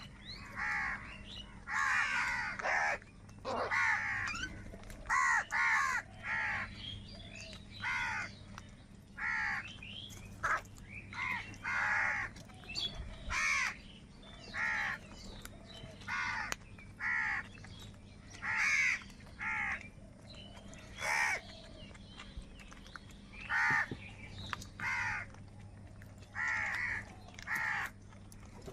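Crows cawing, harsh calls repeated about once a second in short runs with brief gaps.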